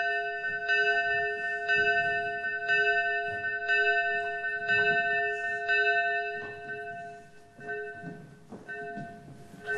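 A single chapel bell tolling about once a second, each stroke the same note. It stops about six seconds in and its ring dies away, leaving a few faint knocks.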